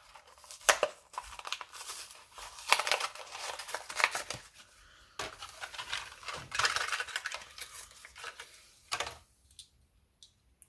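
Plastic blister and cardboard backing of a packaged diecast toy car being torn and crinkled open, in a run of irregular rustles, rips and clicks that dies away about nine seconds in.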